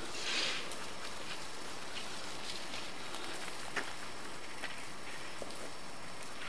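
Steady outdoor hiss like light rain or dripping, with scattered faint clicks. There is a short rustling hiss about half a second in.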